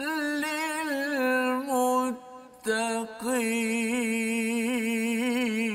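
A man reciting the Quran in a melodic, drawn-out tajwid style. He holds long ornamented notes in two phrases, with a short break for breath about two seconds in.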